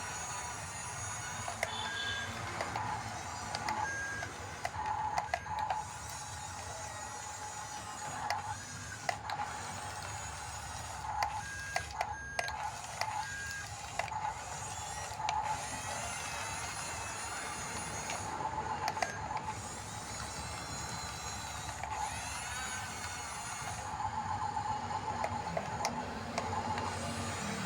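RC model bulldozer's electric drive motors and gearboxes whining as it works, swelling and easing with scattered clicks, and several short high beeps in the first half.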